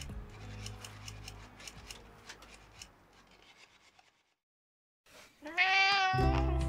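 Background music fades out into a second of silence, then a domestic cat gives one loud, drawn-out meow about a second long, rising and then falling in pitch. Acoustic guitar music starts just after it.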